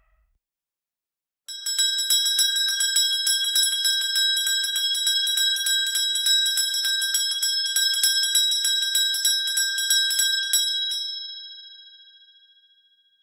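A bell rung in a fast, continuous trill of strikes, starting about a second and a half in and stopping abruptly after about nine seconds, its ringing then fading away.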